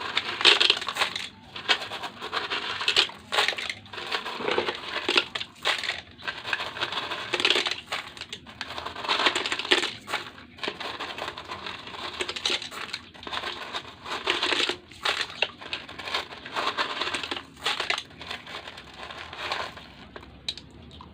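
Loose gravel being dug through and scooped by hand: an irregular run of scrapes and rattles that dies down near the end.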